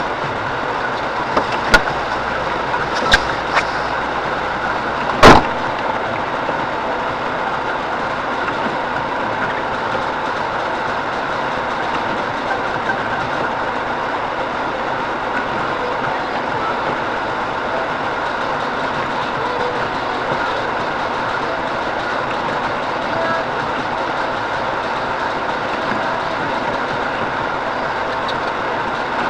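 Steady running noise of a car heard from inside the cabin while driving. A few sharp knocks come in the first six seconds, the loudest about five seconds in.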